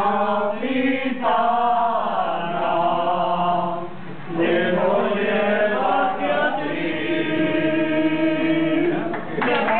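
A group of adult voices singing a habanera together in chorus, with long held notes.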